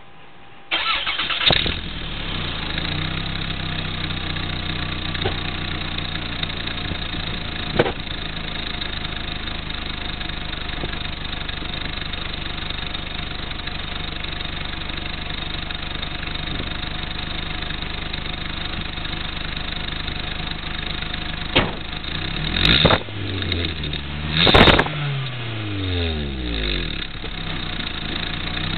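1990 Toyota Celica GT's 2.2-litre four-cylinder engine, on its stock exhaust fitted with a tailpipe turbo whistle, cranking and starting about a second in, then idling steadily. Near the end it is revved a few times, the revs falling back to idle after each blip.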